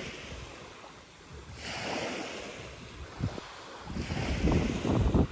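Small waves washing onto a shell-and-pebble shoreline in swells about every two seconds, with wind buffeting the microphone, loudest near the end.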